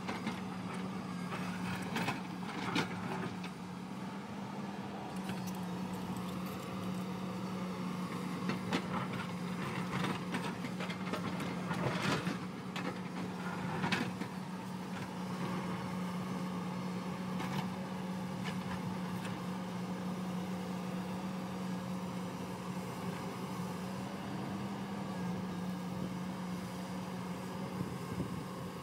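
Hyundai crawler excavator's diesel engine running with a steady hum while the bucket digs into rocky soil, with sharp knocks and scrapes of rock and steel over the first half and steadier running after.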